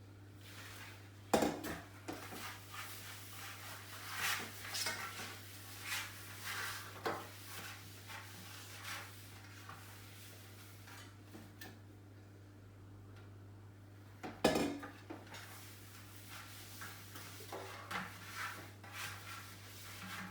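Kitchenware handled by hand: a mixing bowl, baking mold and utensils clinking and scraping, with two sharp knocks, one about a second in and one about fourteen seconds in.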